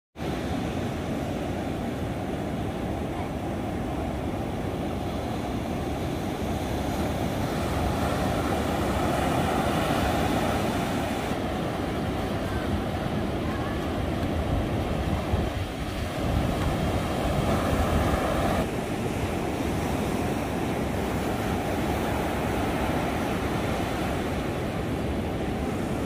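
Ocean surf breaking and washing up a sandy beach, a continuous rush of water that swells louder twice: about a third of the way in, and again about two-thirds in.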